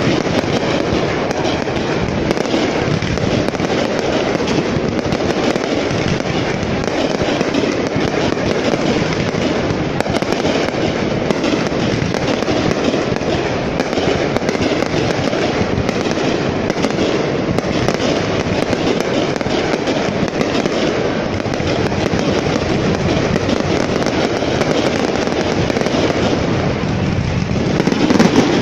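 Fireworks display: a dense, unbroken barrage of shell bursts and crackling with no pause, slightly louder near the end.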